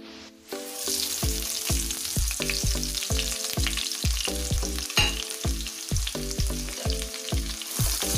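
Sliced onions dropped into hot mustard oil, sizzling hard from about half a second in, with a spatula stirring them in the pan near the end. Background music with a steady beat plays underneath.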